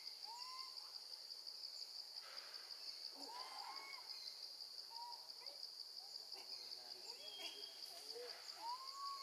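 Steady, finely pulsing high buzz of insects such as cicadas or crickets, with four short rising-then-falling whistle-like animal calls scattered through it.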